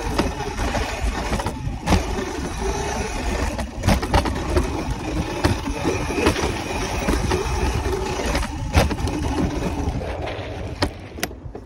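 A bike riding fast over a dirt jump trail: wind rushing over a handlebar-mounted microphone and tyres rumbling on packed dirt, with several sharp knocks and rattles as the bike lands jumps. It quietens near the end as the bike slows.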